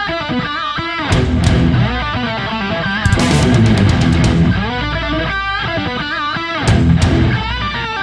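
Heavy metal music: electric guitar playing a melodic lead line over a full band, with a crash every couple of seconds.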